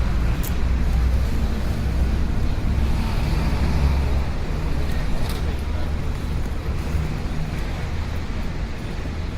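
City street ambience: a steady low rumble of road traffic, with a couple of brief sharp clicks, one about half a second in and another around five seconds.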